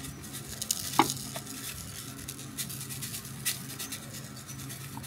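Utensil stirring and breaking up rice in a bowl: light scraping with many small crackly clicks, and a sharper clink against the bowl about a second in.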